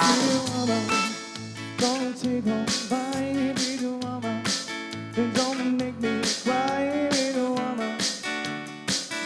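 Acoustic guitar and a percussion kit playing a song together: a steady beat with regular cymbal strikes about twice a second, low drum notes, and a melody line that slides between notes above the guitar.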